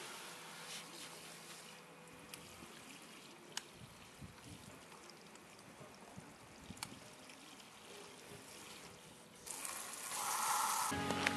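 Water trickling and dripping over a blue plastic motorcycle fender, with a few light clicks. Near the end a louder rush of water splashes across the fender.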